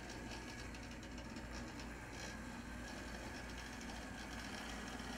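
HO-scale brass model steam locomotive running on its track: the small can motor and gearing give a faint steady whine over a low hum, with light irregular ticking from the wheels on the rails.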